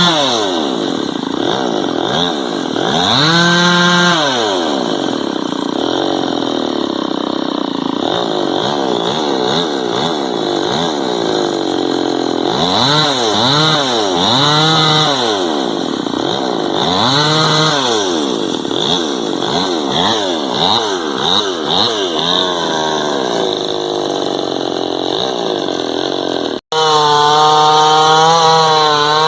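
Chainsaw engine revving up and down over and over, its pitch rising and falling every second or two. Near the end the sound breaks off for an instant, then the saw runs on steadily at high revs.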